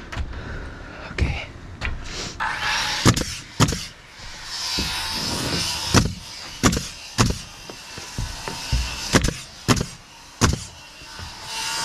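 Nails being driven into plywood roof sheathing: about a dozen sharp knocks at an uneven pace, with a hiss between some of them.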